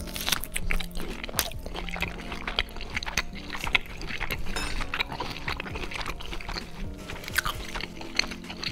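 Close-miked eating: a bite into a grilled sausage, then wet chewing full of quick small mouth clicks and crackles. Background music plays with steady low notes.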